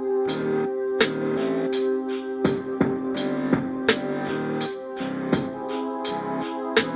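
A beat played back on an Akai MPC Live from its stock sounds: sustained keyboard chords with sharp percussion hits landing every half-second or so.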